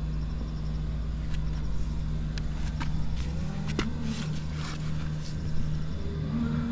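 Honda Gorilla Z50J's 49 cc single-cylinder four-stroke engine running steadily at idle, free of abnormal noises. Its low note shifts about three seconds in, and a few sharp clicks sound over it.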